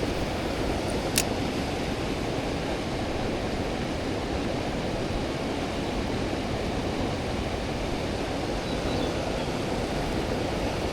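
Mountain stream water rushing steadily over rocks, with a single short click about a second in.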